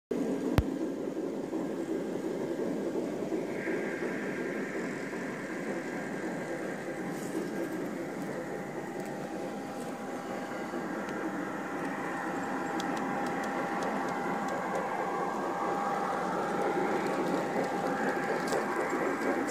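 G-scale model trains running on an outdoor garden railway: a steady rumble of wheels on track with the hum and whine of the locomotive motors. The whine slowly rises in pitch in the second half. There is one sharp click about half a second in.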